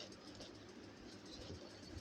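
Faint, soft chewing and small wet mouth sounds of someone eating rice and dal, with a few light clicks.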